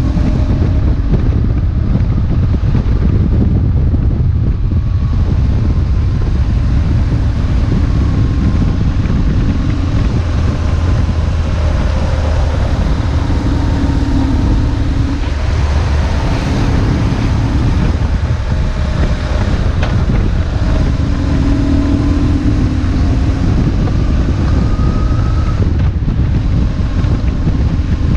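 BMW R1150GS's air/oil-cooled boxer twin running under way, its note rising and falling with the throttle, under a heavy rush of wind on the microphone.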